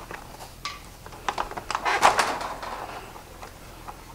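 Plastic retainer clips along the top of a Jeep Wrangler grille being pried up with a flathead screwdriver: a run of plastic clicks and knocks, busiest and loudest about two seconds in.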